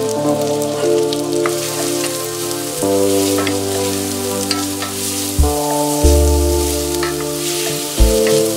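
Bacon pieces and freshly added chopped onion sizzling in a stainless steel saucepan while a wooden spoon stirs them, with small clicks and scrapes against the pan. Background music with held chords and a bass line plays over it, changing chord a few times.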